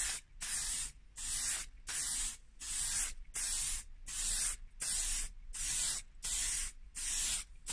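Aerosol can of clear lacquer spraying in a regular string of short hisses, about one and a half a second, each cut off by a brief gap as the nozzle is pressed and released on each pass.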